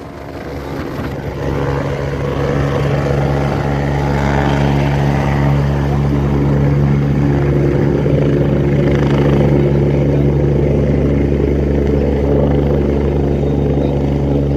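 A loud, steady engine drone that builds over the first couple of seconds and then holds.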